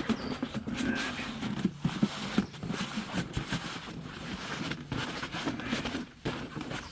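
Rustling and scattered knocks of a runner and gear being handled and shifted about at a crawl space opening.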